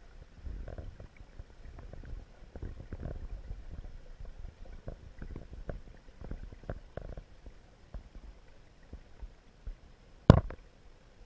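Muffled underwater sound picked up through a submerged camera housing: low rumbling with many scattered ticks and knocks, then one sharp, louder knock about ten seconds in.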